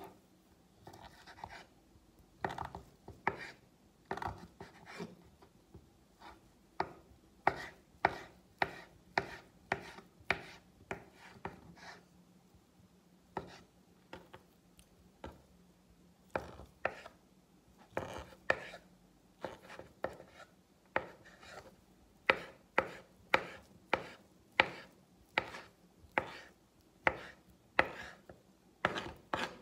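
Small kitchen knife slicing and dicing boiled eggs on a cutting board: a string of sharp taps as the blade strikes the board, about one or two a second in uneven runs with short pauses between.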